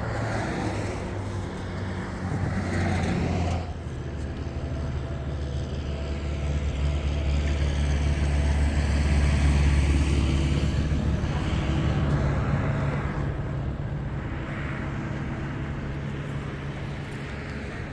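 A motor vehicle's engine running, with a change in its note about three and a half seconds in, then growing louder through the middle and easing off again toward the end.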